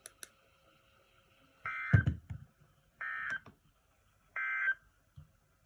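Emergency Alert System (SAME) end-of-message data bursts from a weather-radio broadcast: three short bursts of data tones, evenly spaced about 1.3 seconds apart, with a low thump during the first. They mark the end of the alert message.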